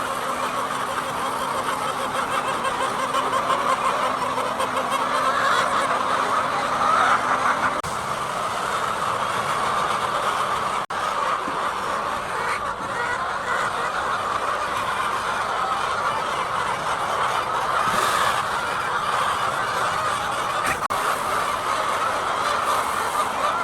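A large flock of laying hens clucking and calling all at once, a steady continuous din.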